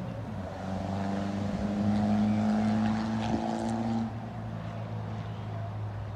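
Motorboat engine running steadily, a little louder in the middle and easing off about four seconds in.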